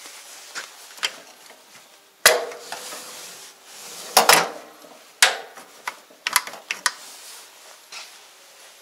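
Metal tool cart and the tools on it being handled, giving a string of irregular clanks and knocks with rattling in between. The loudest hit comes about two seconds in, with more clusters of clanks after the halfway point.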